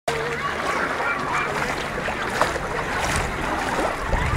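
Sea water sloshing and splashing around people wading and children's inflatable water-walking balls, with many short distant shouts and squeals from children.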